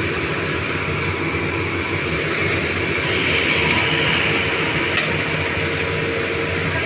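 Doosan 225 excavator running steadily under work, its diesel engine and hydraulics making a continuous drone, with a higher whine swelling about three seconds in and a single click about five seconds in.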